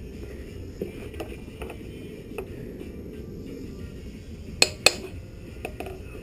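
Light metal taps and clinks, then two sharp ringing metal strikes in quick succession near the end: a hammer knocking on a motorcycle exhaust muffler part, little by little, to drive it out.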